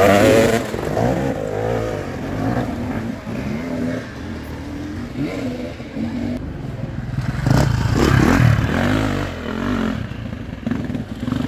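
Enduro dirt bike engines revving on and off, the pitch rising and falling as the throttle is worked, loudest at the start and again about eight seconds in.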